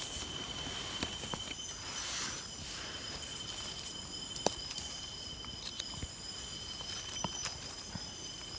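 Steady high chirring of night insects, several even tones held level, with scattered sharp clicks and rustles of dry leaf litter as wild mushrooms are picked by hand; the sharpest click comes about four and a half seconds in.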